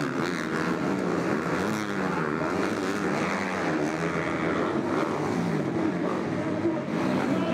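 Motocross bikes racing, their engines revving hard, the pitch rising and falling with each throttle change over the jumps.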